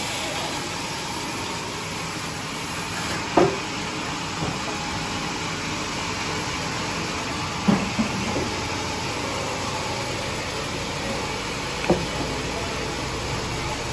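A steady rushing, hiss-like noise with three short knocks spaced about four seconds apart, the last as the log is rolled.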